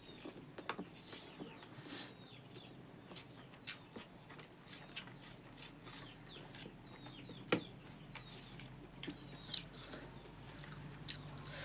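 Close-up chewing of rice and pork, with scattered wet mouth clicks and smacks, one sharper click about halfway through.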